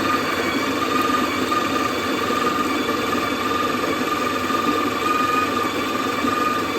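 Sage electric burr coffee grinder running steadily as it grinds coffee beans into the dosing cup during a timed 8.6-second grind. It makes a loud, even motor whine over a gritty grinding noise.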